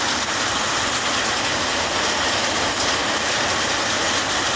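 Hail and heavy rain coming down hard in a dense, steady hiss of countless small impacts.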